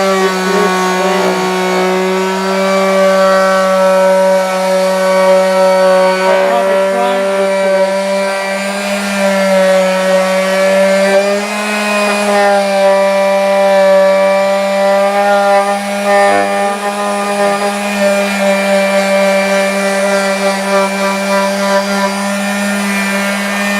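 Electric power sander running steadily, sanding down filler patches on an exterior wall before primer. Its motor gives a constant hum with a slight wobble in pitch now and then.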